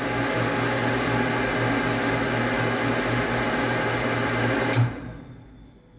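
A 1.5 hp, 220 V electric water pump runs with a steady hum until a sharp click a little under five seconds in, when its pressure switch cuts it off and the motor winds down to quiet. The pump is reaching cut-off pressure and shutting off as it should, where before it kept running without ever cutting out.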